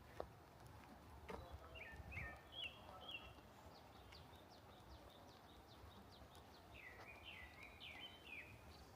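Faint birdsong: two short runs of quick chirping calls, about two seconds in and again near the end, with lighter ticking calls between, over a quiet outdoor hush and a few soft low thumps.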